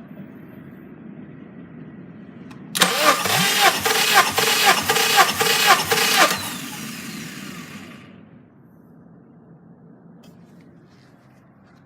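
Honda D17A engine turned over by its starter for about three and a half seconds, a rhythmic chugging with a high whir, as in a compression test; it does not catch and fades out as it spins down.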